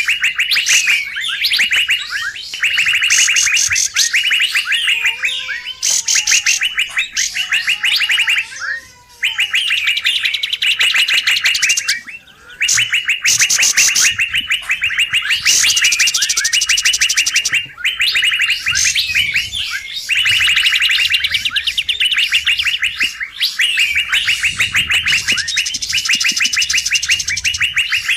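Pied triller (kapas tembak) calls played as a lure: agitated, fast chattering trills repeated in bursts of a second or two with brief pauses, almost without a break. A few faint lower wavering whistles come in about a third of the way through.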